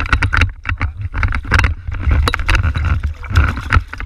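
Irregular knocks, clicks and splashy rustles of a bass being handled in a kayak, over a low, steady wind rumble on the microphone.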